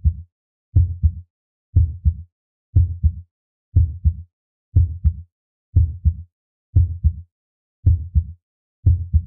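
Heartbeat sound effect: a slow, even lub-dub double thump about once a second, low and deep, with dead silence between the beats.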